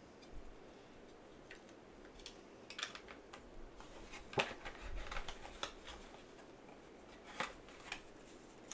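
Trading cards and a hard plastic card holder being handled: light clicks and rustles, with a sharp tap about four and a half seconds in. Near the end, the rustle and click of a black card mailer being handled.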